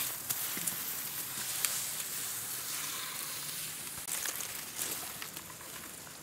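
Dry grass, leaves and twigs rustling and crackling close by, a continuous hissy crackle that fades away near the end.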